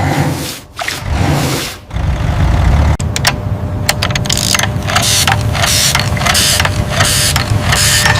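Mini excavator engine running under a string of mechanical clicks and short hissing bursts, which come about twice a second from about three seconds in.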